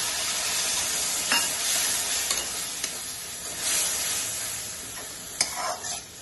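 Onion-tomato masala with boiled goat brains sizzling in a steel kadhai as a little water goes in. A steel spatula stirs it, scraping and knocking against the pan a few times, with one sharp knock about five seconds in. The sizzle slowly dies down.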